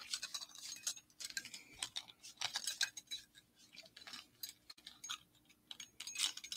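Irregular light clicks and clinks from metal earrings and their display cards being handled.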